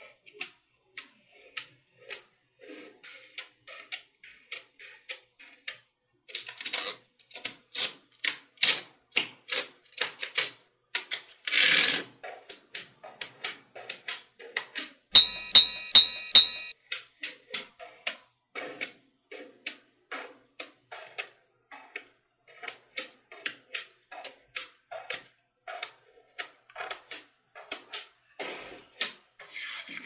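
Small magnetic metal balls clicking and clacking as they snap together and are pressed and shifted by hand, with a longer rattle of many balls a little before the middle. About halfway through comes a short burst of loud, evenly pulsed electronic tones, the loudest sound.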